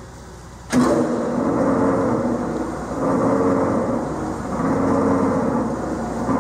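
Shaffer BEW-3 chain-driven triple roller bar mixer comes on suddenly about a second in and runs empty, its roller bar agitator turning in the stainless steel bowl. The machine hum swells and eases in a slow regular rhythm, about every second and a half.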